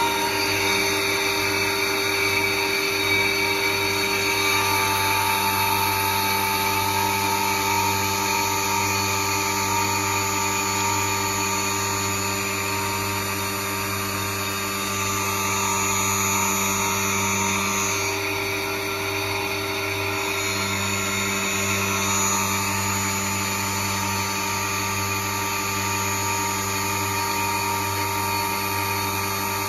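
Schneeberger Centromat grinding machine running, a steady whine made of several held tones over a hiss; one lower tone drops out for a couple of seconds just past the middle.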